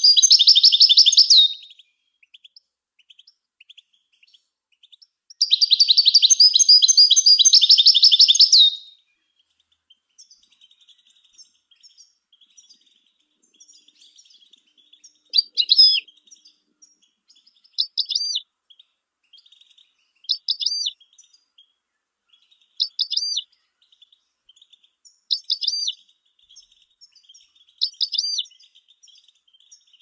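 European goldfinch singing: two dense, fast twittering phrases of a few seconds each, then from about halfway short single notes about every two and a half seconds, with faint twittering between.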